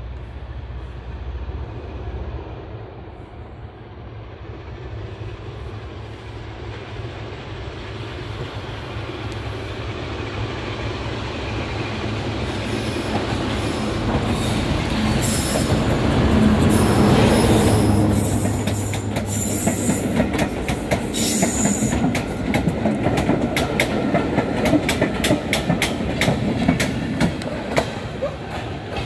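A diesel locomotive approaches under power and passes close by, its engine sound building to a peak about two-thirds of the way through, with high wheel squeal as it goes by. Its coaches then roll past with rapid, regular clacking of wheels over the rail joints.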